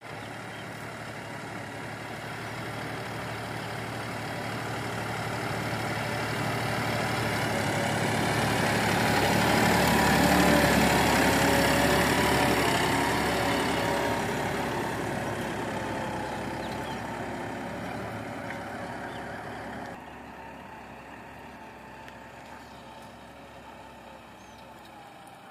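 John Deere tractor engine running, growing louder to a peak about halfway through and then fading away, with a sudden drop in level about twenty seconds in.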